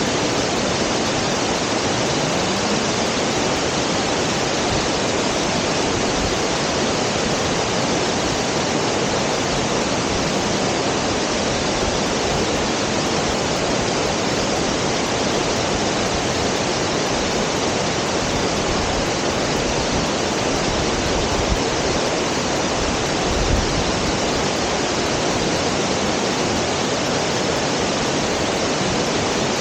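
Shirahige (Whitebeard) Falls: groundwater pouring about 30 m from cracks in a lava layer into the river below, making a loud, steady roar of falling water.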